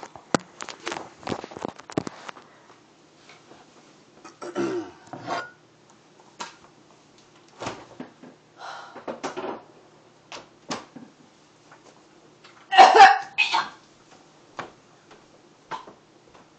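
A woman coughing and clearing her throat in short fits after swallowing cough medicine she finds foul, the loudest fit about three-quarters of the way through. A few sharp clicks come in the first two seconds.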